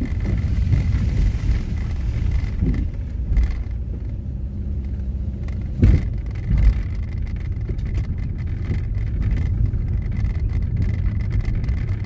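Car driving slowly on a rough rural road, heard from inside the cabin: a steady low rumble of engine and tyres, with two heavy jolts about six seconds in.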